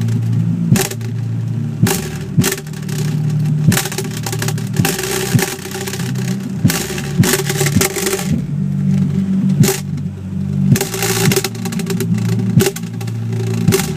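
Music with a heavy bass line and sharp, regular drum hits playing loud through a Logitech Z2300 subwoofer in a semi-truck cab.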